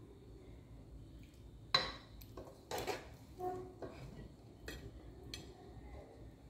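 A metal spoon clinking and scraping against a cooking pot and a ceramic plate while stew is served over rice. There are a handful of sharp clinks, spaced roughly a second apart, starting a little under two seconds in.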